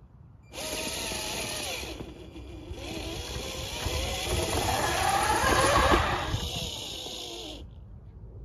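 Electric drive motors and gearboxes of a Clodbuster-type RC monster truck whining under throttle, the pitch rising and falling as it speeds up and slows. The sound starts about half a second in, is loudest around five to six seconds in, and cuts off shortly before the end.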